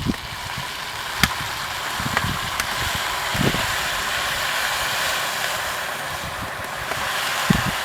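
Zirvak (meat frying in oil in a pot for plov) sizzling steadily, with a few sharp crackles in the first few seconds.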